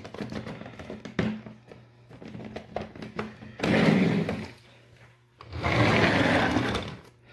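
Hard plastic model train display cases being handled on a countertop: a few sharp clicks and knocks, then two longer scraping rubs as cases are slid and moved.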